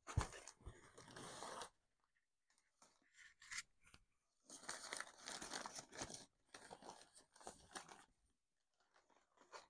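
Newspaper wrapping crinkling and tearing in several bursts as a newspaper-wrapped plant pot is lifted out of a box and unwrapped.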